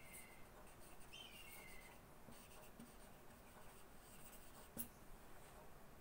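Marker pen writing on chart paper: faint scratching strokes, a short high squeak about a second in, and a sharp tap near the end.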